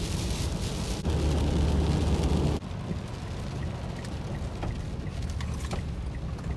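Car road noise heard from inside the cabin at night: a steady low rumble of engine and tyres that drops abruptly to a quieter rumble about two and a half seconds in.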